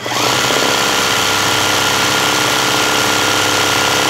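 Zigzag sewing machine starting up and running fast and steadily, stitching dense satin-stitch embroidery as the hooped fabric is guided by hand.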